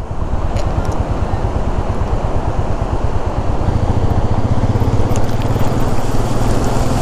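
Royal Enfield Meteor 350's single-cylinder engine running as the motorcycle rides toward and into a rushing glacial stream, with the noise of flowing water. The engine note picks up and grows stronger about three and a half seconds in.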